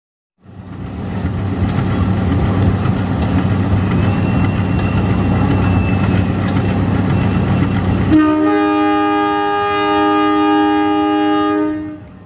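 KAI CC201 diesel locomotive passing close by, its engine and running gear making a loud steady noise with a few sharp clicks from the wheels on the track. About eight seconds in it sounds one long multi-tone horn blast, held for about four seconds before fading out.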